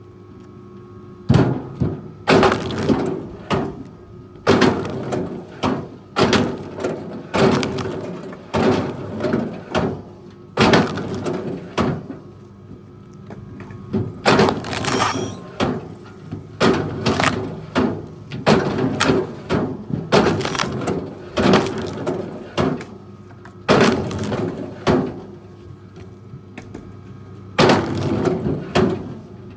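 Wood cracking and breaking in a long series of loud, sudden bursts, roughly one a second, over the steady hum of a running machine.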